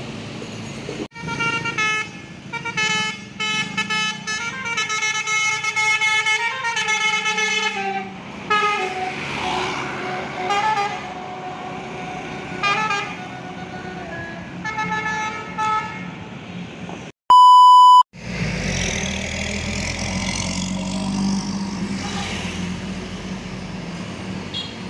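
Bus 'telolet basuri' musical horn playing a tune of stepped, changing tones for about fifteen seconds. About seventeen seconds in comes a short, loud, steady beep, then the low, steady rumble of a bus engine running.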